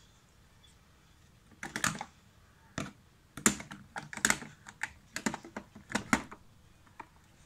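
A Maine Coon's paw fishing down a narrow gap at the edge of a desk, knocking and rattling small hard objects: an irregular run of sharp clicks and clatters, starting under two seconds in and dying away near the end.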